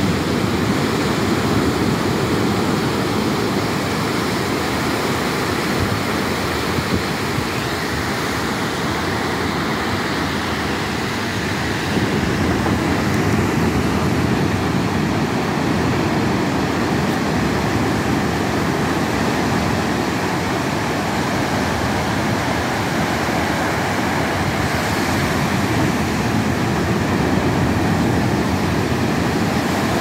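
Sea surf on a sandy beach: low waves breaking and washing up the shore, a steady rushing noise with slight swells in loudness.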